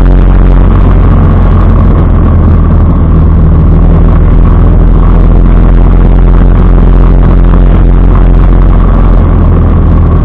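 Motorcycle engine running steadily under way, loud, with wind rushing over the microphone; the engine note changes about half a second in, then holds steady.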